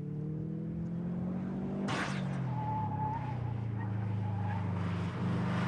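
Subaru WRX's turbocharged flat-four engine running hard under load through a fast, erratic corner, its note held fairly steady, with a sharp burst of noise about two seconds in.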